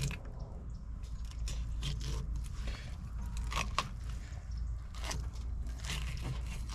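Fillet knife scraping and cutting along a mullet's backbone and through flesh, in irregular short strokes and clicks, with a steady low hum underneath.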